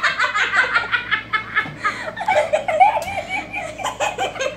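Two young girls laughing hard together, a stream of rapid, pulsing giggles and belly laughs.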